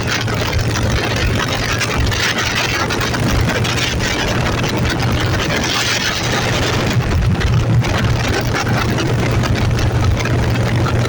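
A vehicle engine running steadily on the move, a constant low hum with a rushing hiss over it.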